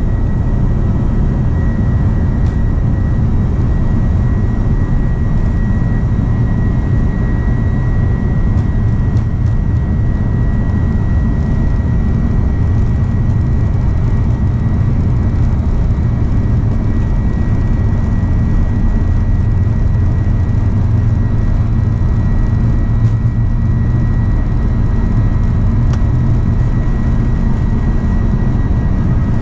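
Airbus A330-200's turbofan engines at takeoff power, heard from inside the cabin over the wing during the takeoff roll: a loud, steady rumble with a steady high whine, up to rotation near the end.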